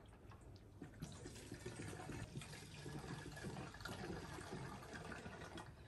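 Faint pouring of two-stroke fuel mix from a plastic gas can into a small engine's fuel tank.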